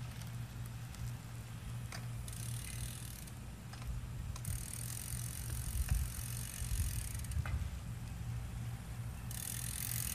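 Cruzbike-based tilting recumbent trike rolling and circling on asphalt, heard at a distance over a steady low rumble, with a few light clicks. A hiss grows louder near the end as the trike comes closer.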